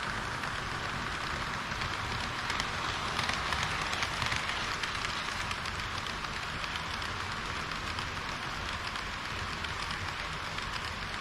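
HO-gauge model train wheels rolling on the track, a steady crackling rattle heard close up, a little louder about three to four seconds in.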